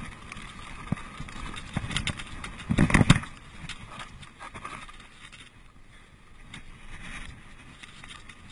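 Mountain bike rolling fast over a dirt forest trail: tyres running on dirt with the bike rattling and knocking over bumps, and a loud burst of noise about three seconds in.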